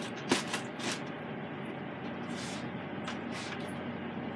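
Zipper-top plastic bag being pressed shut and handled: crinkling plastic with a few short light clicks and a soft rustle.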